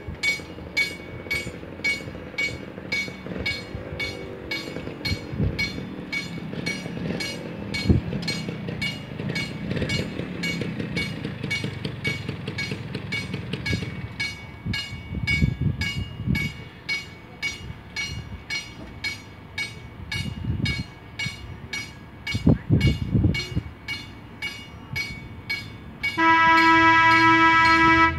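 Drawbridge warning bell ringing steadily, about two strokes a second, while the traffic gates come down, with low traffic rumble at times. Near the end a loud horn sounds one steady blast of about two seconds.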